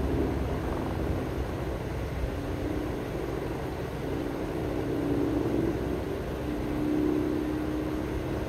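Steady distant engine drone with a humming tone that swells about halfway through and again near the end.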